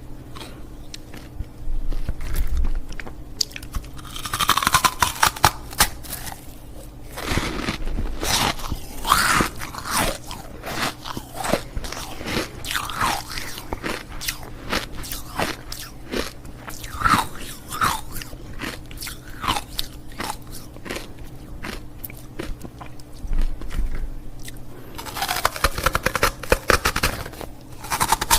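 Ice cubes being bitten and crunched between the teeth close to the microphone, in repeated crackling crunches with louder bouts a few seconds apart and chewing in between.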